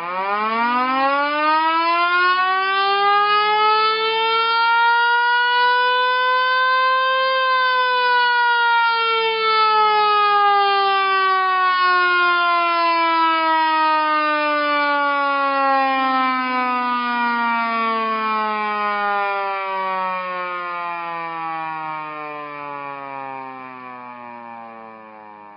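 Old-style emergency-vehicle siren giving one long wail. It rises in pitch for about seven seconds, then slowly slides back down and fades over the last several seconds.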